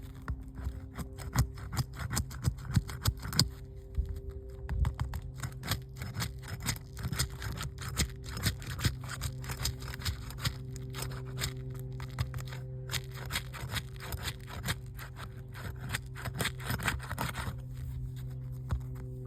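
Repeated scraping and clicking of a roof snake, a shingle-removal pry tool, being worked under roof shingles to break their seal and fasteners. It runs over a steady low hum.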